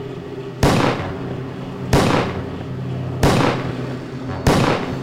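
Four pistol shots about a second and a half apart, each a sharp crack with a short decaying tail, over a steady low hum.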